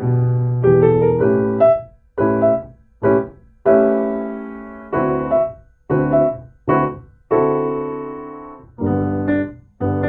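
Solo piano music: single notes and chords struck about once a second, each left to ring and fade.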